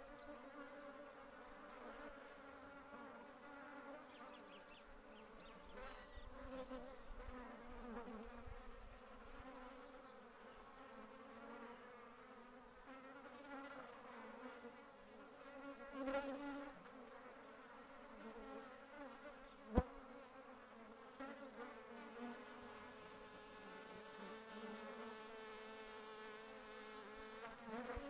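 Honeybees buzzing close by as they land, take off and hover around a drinking spot, the hum swelling and fading as individual bees fly past, loudest about halfway through. A single sharp click a little past the middle.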